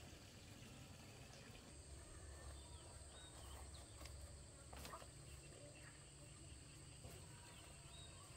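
Faint countryside ambience: a steady high-pitched insect drone that starts about two seconds in, with a few short bird chirps and a single click.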